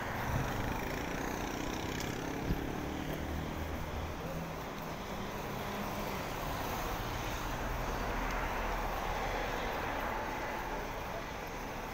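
Steady road traffic noise: vehicle engines running, with a slow swell in the middle as traffic passes.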